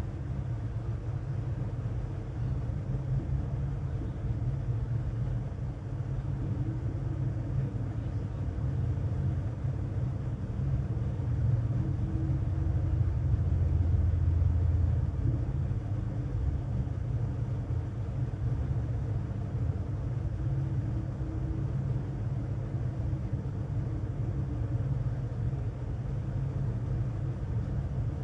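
Steady low rumble, a little louder for a few seconds around the middle.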